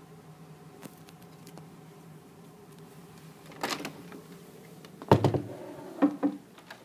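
Classroom door being opened: a burst of noise as the latch and door move, then a loud thump about five seconds in and a couple of knocks after it, over a steady low room hum.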